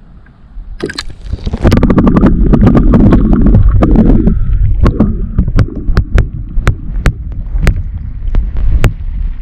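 Camera on a selfie stick dunked into lake water with a splash about a second in, then heard from underwater: a loud muffled rumble with gurgling and many sharp clicks.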